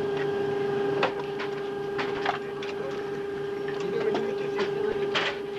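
A steady high hum, like the whine of an aircraft's electrical equipment, with irregular sharp clicks and ticks through it, the strongest about one, two and five seconds in.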